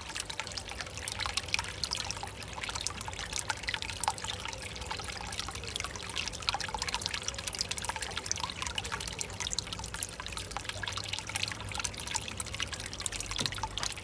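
Water from a slipway pond filter's outlet trickling and splashing steadily into a small raised goldfish pond.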